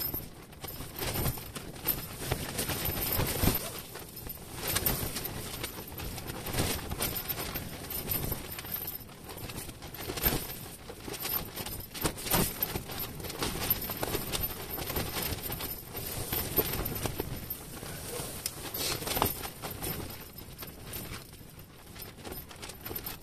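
Ice-fishing tent fabric flapping and snapping in a strong wind: an irregular run of sharp knocks and rustles over a constant rushing noise.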